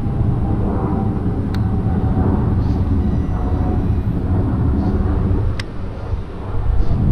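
Wind buffeting the camera microphone as a steady low rumble, with two sharp clicks, about a second and a half in and again near the end.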